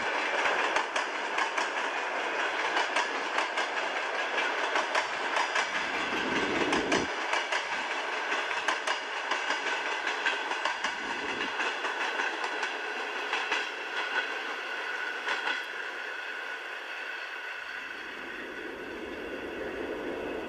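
Train running on rails: a steady clatter of wheels over the track, full of small rapid clicks, with a high ringing tone from the wheels and rails. It eases slightly in level over the last few seconds.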